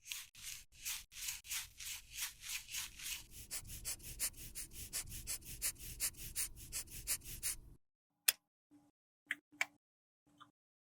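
Quick, even scraping strokes of a tool working a makeup product, about four a second, stopping abruptly near the end and followed by a few light, sharp taps.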